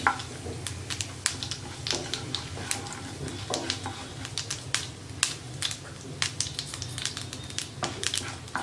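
Tempering of dried red chillies and lentils and seeds frying in ghee in a nonstick pan, stirred with a wooden spatula: irregular sharp clicks and crackles over a low steady hum.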